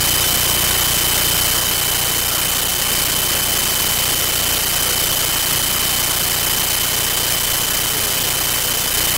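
Steady loud hiss with a thin high-pitched whine and a low hum underneath, unchanging throughout; no speech comes through.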